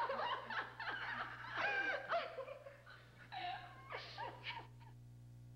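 Several people laughing together in fits that die away about four and a half seconds in. A steady low electrical hum runs underneath and is left alone at the end.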